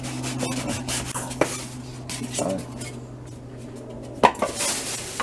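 Knocks, clinks and rubbing from a new sliding compound mitre saw and its packaging being handled, with a sharp knock about four seconds in. A steady low hum runs underneath.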